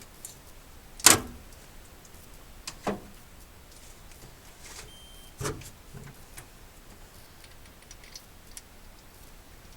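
Three sharp metal knocks from tools and parts being handled at the engine, the loudest about a second in, the others near three and five and a half seconds in, with a few faint ticks between.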